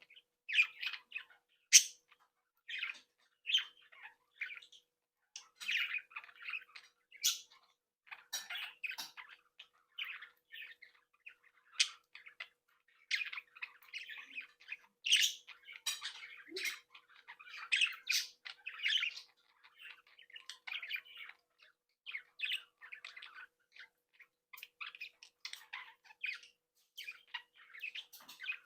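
Budgerigars chattering: a steady stream of short chirps, squawks and warbling calls from several birds.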